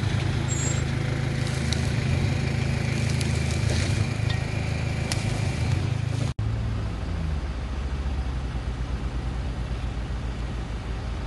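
SUV engine running steadily under load during an off-road recovery. About six seconds in the sound cuts abruptly to another engine running lower, with an even, low throb.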